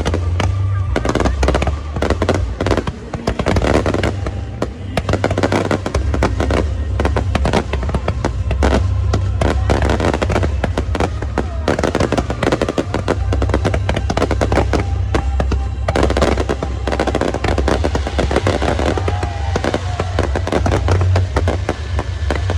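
Fireworks display going off: rapid, dense crackling and popping over a continuous low rumble.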